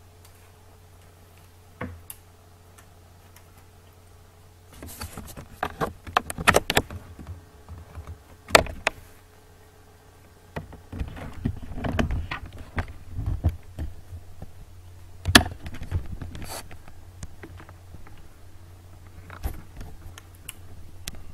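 Handling noise from a handheld camera being swung and carried about: scattered clicks, knocks and rustling, with clusters of clatter about five seconds in and again around eleven seconds, over a low steady hum.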